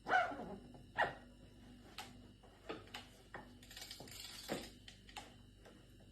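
Sharp clicks and taps, about one a second with a few coming closer together, as the bike's crankset is fitted back into a new press-fit bottom bracket with ceramic bearings.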